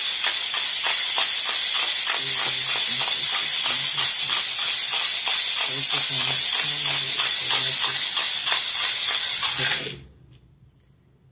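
A handful of letter dice shaken in a clear cup: a loud, continuous rattle of many small clicks that stops suddenly near the end.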